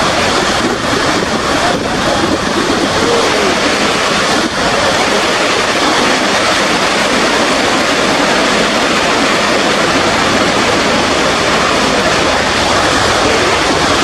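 Niagara Falls' cascading water, a loud, steady rush of water plunging onto rocks and the river below.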